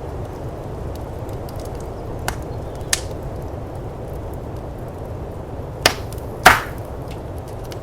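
Firepit wood fire crackling, with faint ticks and four sharp pops, the loudest near the end, over a steady low rush of blizzard wind.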